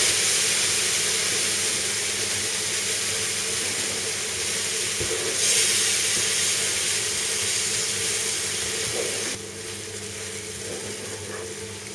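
White wine sizzling and bubbling in a hot frying pan of toasted almond, garlic and flour paste as it is stirred, the liquid cooking off as the paste thickens. The steady hiss drops sharply about nine seconds in and goes on more quietly.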